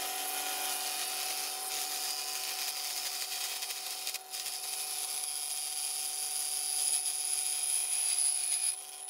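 WEN benchtop drill press running steadily with a hole saw, whose teeth are fed down into a metal tube to cut a notch in it. It gets a little louder near the end as the saw bites.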